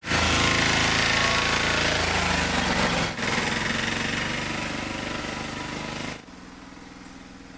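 VST Shakti 130 DI power tiller's single-cylinder diesel engine running steadily with a fast chatter as it tows a trailer. The sound dips briefly about three seconds in, fades as the tiller drives away, and drops suddenly to a quieter, steady running about six seconds in.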